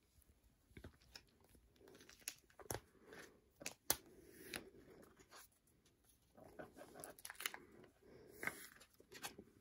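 Faint crinkling and rustling of plastic binder sleeves as photo cards are slid out of their pockets, with scattered small clicks and taps.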